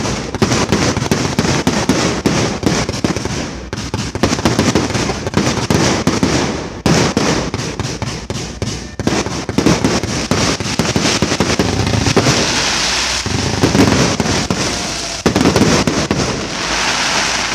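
Fireworks barrage set off close by: a rapid, continuous run of launches, bangs and crackling, many reports a second. It eases off briefly twice and then surges again.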